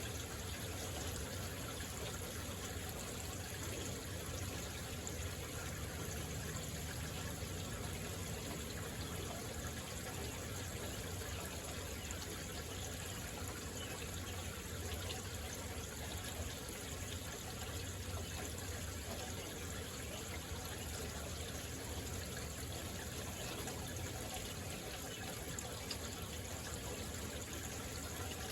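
Heavy rain falling steadily, an even hiss of water with no thunder.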